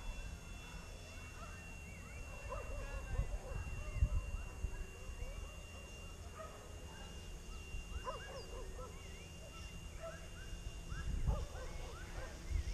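Flywing FW450 electric RC helicopter flying high overhead, heard as a thin steady whine. Over it come many short rising-and-falling animal calls, and under it a low uneven rumble.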